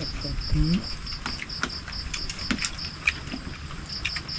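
An insect chirping in steady high pulses, about five a second, with a short break near the end, over scattered clicks of metal spoons against plastic plates.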